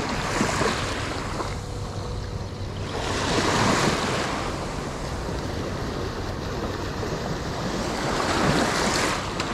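Small waves washing in and drawing back, the wash swelling and fading every few seconds, with wind buffeting the microphone.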